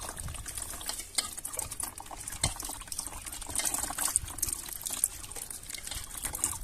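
Watermelon juice trickling and spattering into a plastic tub as crushed watermelon pulp is pressed by hand through a sieve, with many small irregular splashes.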